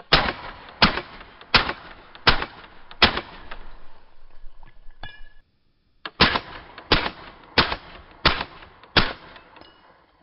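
Kriss Vector in .45 ACP firing subsonic rounds through a Rugged Obsidian 45 suppressor, one shot at a time. There are five shots about 0.7 s apart, a pause of about three seconds, then five more at the same pace.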